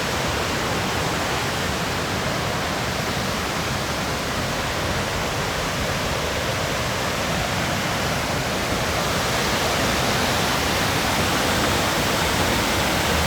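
Crystal Creek waterfall rushing in a steady wash of falling water, growing slightly louder toward the end.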